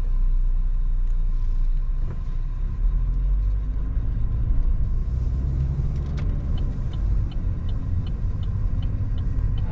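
Road and engine noise inside a moving car's cabin, a steady low rumble. In the second half, the turn-signal indicator ticks about three times a second.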